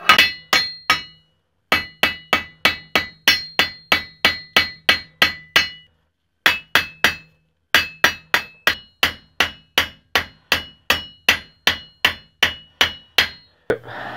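Ball-peen hammer striking the steel nail heads that pin an axe head to its wooden haft, peening them over to look like rivet heads. Quick, even blows about three a second with a metallic ring, in four runs with short pauses between.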